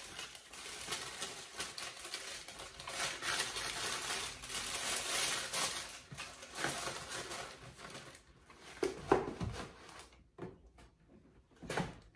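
Tissue paper rustling and crinkling as a sandal is packed back into its cardboard shoebox, followed in the last few seconds by a few dull knocks of the shoebox being closed and moved.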